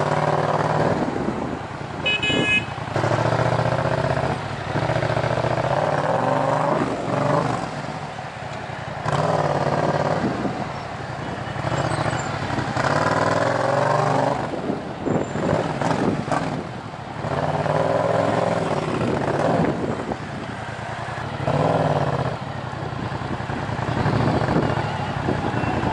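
2014 Yamaha MT-07's parallel-twin engine through a Tiger full exhaust system with decat headers, revving in short bursts and dropping back between them.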